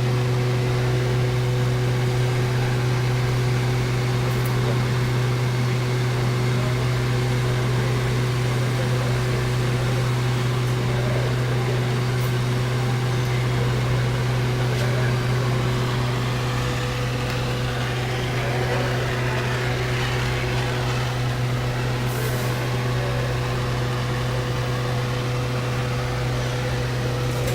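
Running HVAC equipment giving a loud, steady low electrical hum with a few fainter higher tones above it, unchanging throughout.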